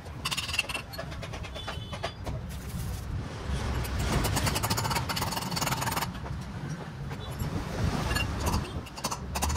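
Low rumble of a motor vehicle engine running nearby, with light metallic clinks as e-rickshaw gearbox parts are handled.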